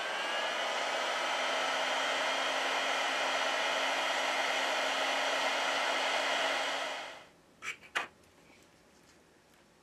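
Heat gun blowing hot air, a steady rush of air over a low hum, which winds down about seven seconds in. Two light clicks follow just after.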